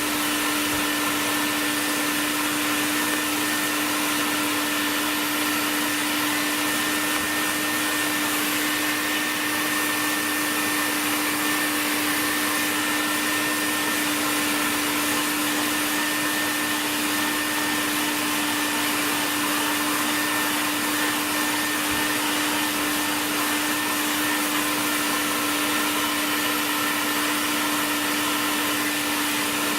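A small electric motor running steadily with a rush of air: a constant hum and whine over a wide hiss, unchanging throughout.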